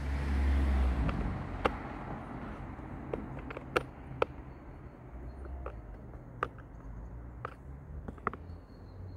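Scattered sharp clicks and taps of a metal T-handle socket wrench on the screws of a chainsaw's plastic starter cover, the screws driven gently into plastic threads. A low rumble is loudest in the first second or two, then fades.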